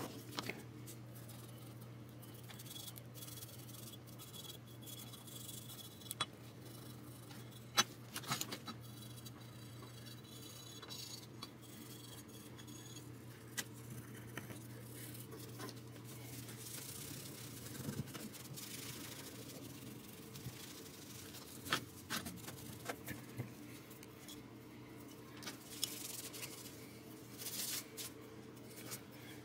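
Faint rubbing of fingers and a rag polishing a chrome Telecaster bridge plate with a white paste polish, with scattered light clicks and taps of the metal plate, over a low steady hum.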